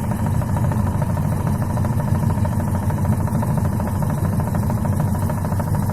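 Videocon VNA811 washing machine spinning smoothly and steadily, without the spin noise, its gearbox lever adjusted by setting the 10-number screw so there is no gap.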